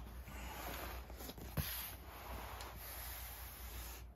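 A cardboard box slid and turned by hand on carpet: continuous rubbing scrape with a few light knocks.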